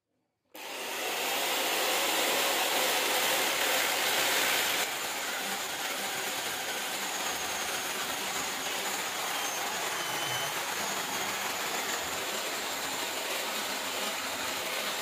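Chainsaw cutting into a wooden log, a dense steady whine-and-rasp. It starts abruptly, drops a little in level about five seconds in, and stops abruptly.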